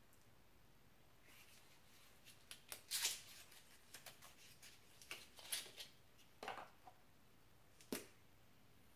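Faint handling sounds of a lipstick and its packaging: a scattering of soft clicks and rustles, loudest about three seconds in and again near the end.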